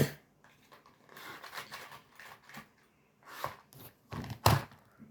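Irregular rustling and handling noises with a few sharp clicks, the loudest about four and a half seconds in.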